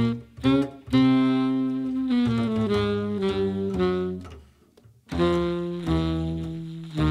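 Jazz quartet music: a saxophone plays long held notes in a slow phrase that steps down in pitch over a bass line, breaks off for a moment about four and a half seconds in, then comes back on a new held note.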